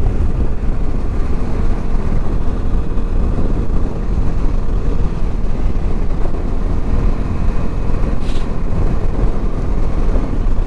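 Bajaj Dominar 250 motorcycle riding at road speed, its engine hum under a steady rush of wind over the microphone, with a brief hiss about eight seconds in.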